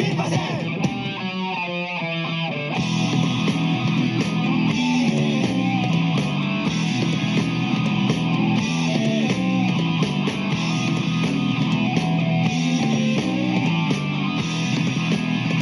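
Background rock music with electric guitar and drum kit.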